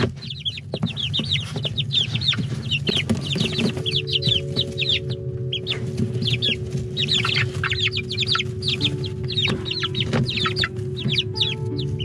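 Six-week-old chickens in a brooder peeping: many short, falling chirps, several a second, overlapping from several birds.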